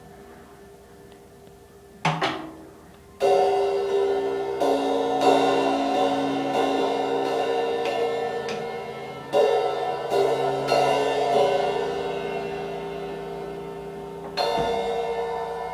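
Drum-kit cymbals struck by a toddler: a handful of irregular hits, the first light one about two seconds in, each left to ring on long between strikes.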